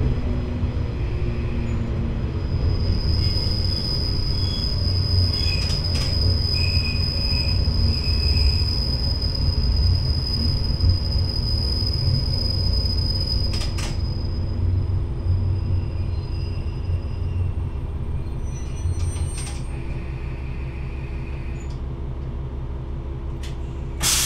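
Diesel railcar running along the line, its engine giving a steady low rumble, with a high thin wheel squeal on a curve from about three seconds in until about fourteen. Two sharp clicks cut in during the squeal, and the engine note drops a little about two-thirds of the way through.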